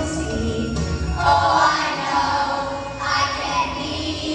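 A group of children singing together with musical accompaniment, new sung phrases starting about a second in and again near three seconds in.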